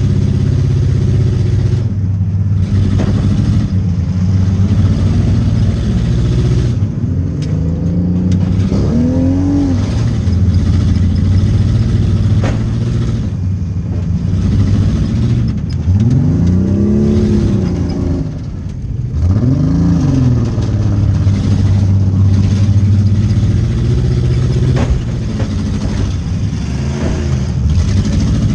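Demolition derby car engine running hard, revving up and back down three times, with a couple of sharp knocks.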